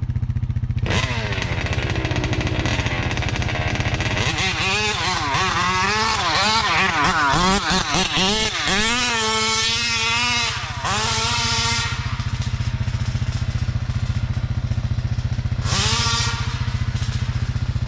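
The 50cc two-stroke GT Taylor engine of a large-scale Kraken Vekta 5 RC car is running. It revs up and down repeatedly through the middle, settles to a steadier note, and gives one more short rev near the end.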